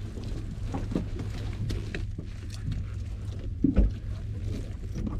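Steady low hum of a fishing boat's engine, with scattered light knocks and one heavier thump just before four seconds in from work on a yellowtail lying on the wooden deck.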